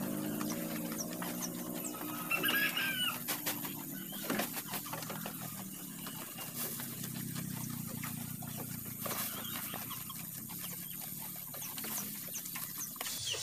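Goats eating fresh grass forage from a trough: a steady run of small clicks, crunches and leaf rustles, with a few louder knocks. A short bird call sounds once, about two and a half seconds in.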